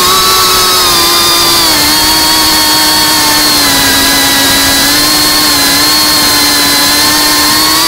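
GEPRC Cinelog 35 cinewhoop's brushless motors and propellers whining steadily in flight, the pitch dropping a little about two seconds in and wavering slightly after.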